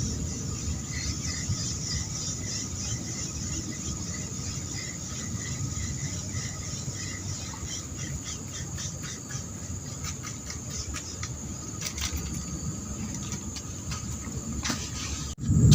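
Outdoor ambience: a steady high-pitched drone like insects, with a short chirp repeated about twice a second for the first several seconds, scattered clicks later on, and a low rumble underneath.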